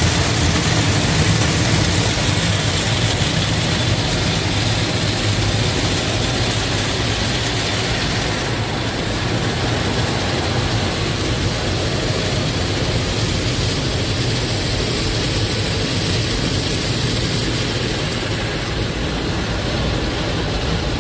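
Automatic car wash spraying water over a car, heard from inside the cabin: a loud, steady rush of spray on the glass and body, with a steady low hum underneath.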